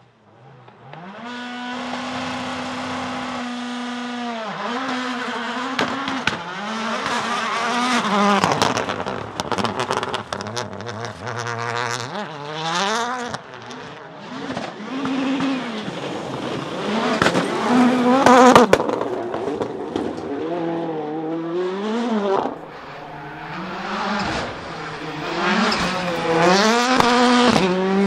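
Audi S1 RX quattro rallycross engines, turbocharged 2.0-litre four-cylinders, revving hard and rising and falling over and over, with sharp bangs and pops from the anti-lag system. Near the start an engine is held at a steady rev for a couple of seconds.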